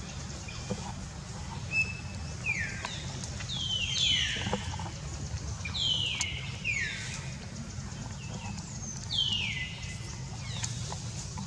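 A series of high-pitched animal calls, about six of them in loose groups, each sliding steeply down in pitch over roughly half a second, over a steady low rumble.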